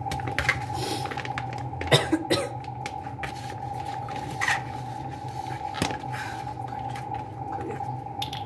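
A person coughing, loudest about two seconds in, with a couple of shorter sudden sounds later, over a steady electrical hum.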